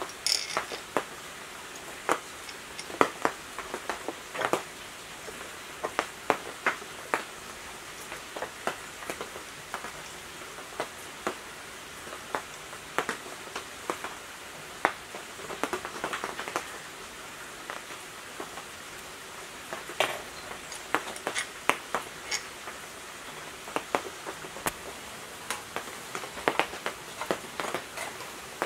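Irregular light metallic clicks and taps of thin steel wires against an electric motor's end shield and bearing cap as they are worked through its bolt holes, over a steady faint hiss.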